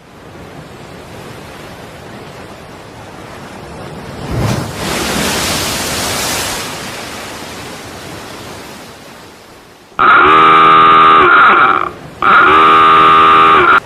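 Sea and wind noise that swells into a rushing surge about four seconds in, then a ship's whistle sounds two long, very loud blasts of a steady deep tone, each close to two seconds, with a short break between them.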